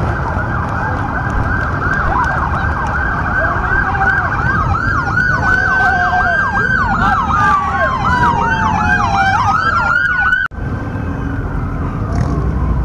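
Police car sirens from several units at once: a fast yelp repeating several times a second layered over a slower wail that falls and then rises again. They break off abruptly about ten seconds in and carry on more faintly, over a low rumble of engines.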